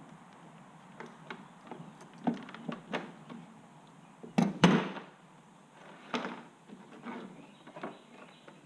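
Knocks and clatter of a chainsaw's 16-inch guide bar and chain being handled, with scattered small clicks and two loud knocks close together about four and a half seconds in.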